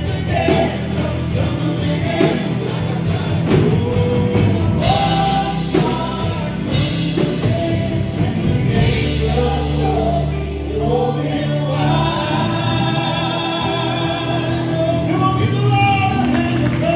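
Live church worship band playing and singing a contemporary worship song: several voices singing together over acoustic and electric guitars, keyboard, bass and a steady beat.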